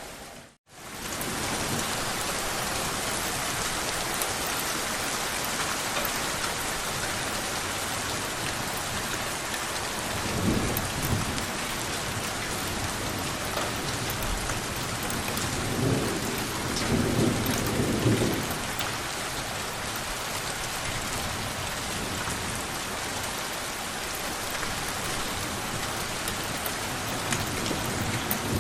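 Steady rain falling, with two rolls of distant thunder: one about ten seconds in, and a longer one around sixteen to eighteen seconds. The sound cuts out for a split second just after the start.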